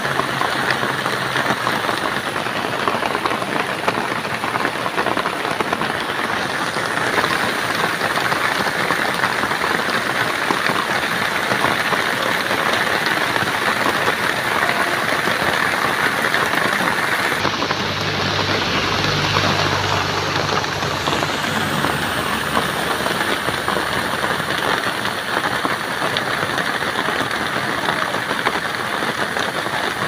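Heavy rain pouring steadily onto a road and roadside vegetation: a dense, even hiss. A vehicle engine's low hum comes through briefly in the first second and again a little past the middle.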